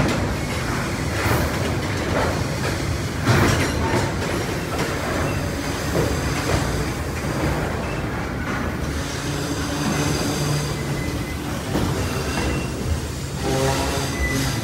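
Freight train rolling past: wagon wheels knocking over the rail joints, with a thin high wheel squeal that comes and goes.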